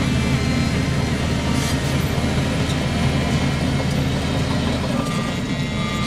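Heavy diesel engine of earthmoving machinery running steadily.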